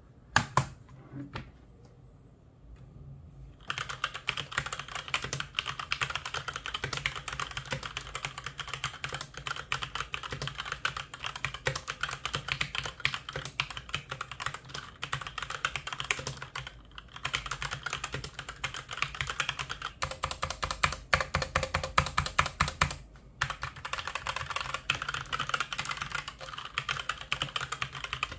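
Typing on a SteelSeries gaming keyboard: a few single keystrokes, then fast continuous clicking of keys from about four seconds in, with two short breaks.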